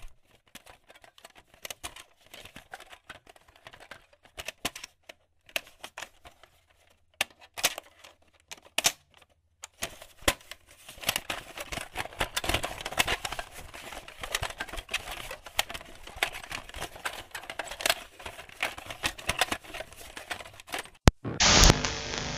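Sparse, irregular crackles and clicks, thickening into dense crackling about ten seconds in, then a sharp click and a burst of harsh static near the end.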